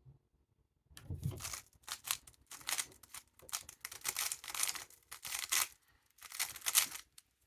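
Rubik's cube being turned at speed during a timed solve: a fast, continuous plastic clatter of layer turns with brief pauses, starting about a second in and stopping just before the end.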